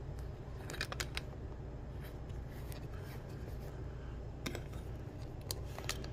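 A quick cluster of sharp clicks and taps about a second in, and a few more near the end, over a low steady hum.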